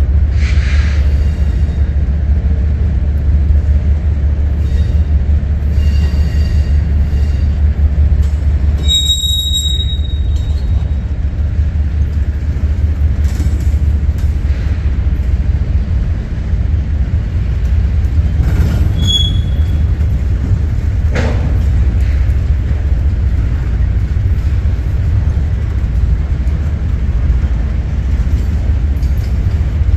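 Double-stack intermodal container train rolling past: a steady, loud low rumble of well cars on the rails, with brief high-pitched wheel squeals about a third of the way in, again past halfway, and near the end.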